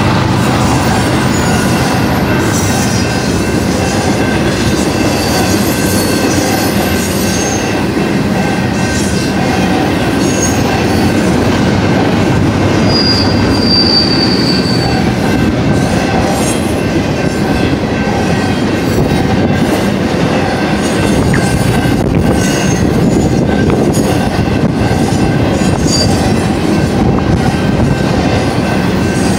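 Double-stack intermodal well cars of a long freight train rolling past close by: a steady, loud rumble and rattle of steel wheels on rail. Short high wheel squeals come now and then, the longest about halfway through.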